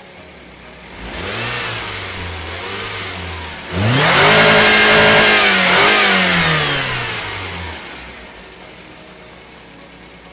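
A 1997–2001 Toyota Camry engine free-revving with the car standing still. About a second in it rises from idle to a moderate rev. A few seconds later it climbs sharply to about 6,000 rpm, the loudest part, then winds back down to idle.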